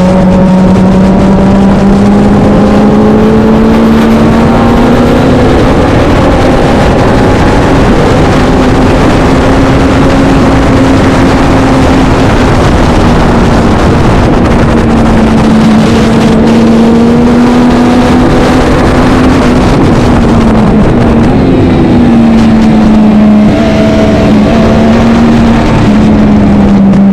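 Racing motorcycle engine running hard at sustained high revs, its pitch rising and falling gently with throttle and gear changes, very loud over heavy wind and engine noise.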